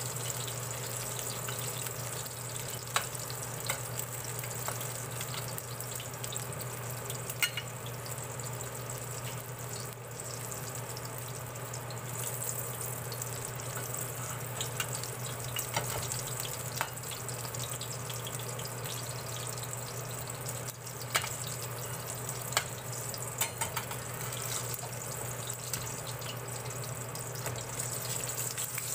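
Okoy (small-shrimp fritters) sizzling steadily as they shallow-fry in hot oil in a stainless steel pan, with a low hum underneath. Scattered sharp clicks and ticks from the metal spatula against the pan and spitting oil.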